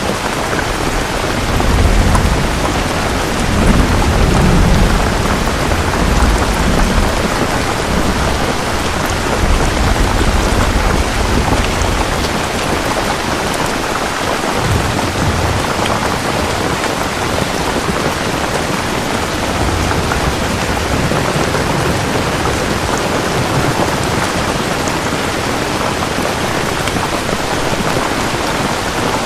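Steady rain falling, with low rolling rumbles of thunder through the first half.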